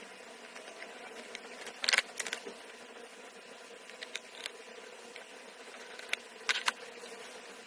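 Sharp small clicks and taps from handling, scattered every second or two, with louder clusters about two seconds in and near the end, over a steady low hum and hiss.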